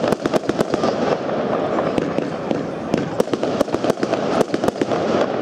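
Firework cake (Thunder Kingdom Big Mc Thunder) firing: a rapid, irregular string of sharp bangs and crackles over a continuous din of smaller reports.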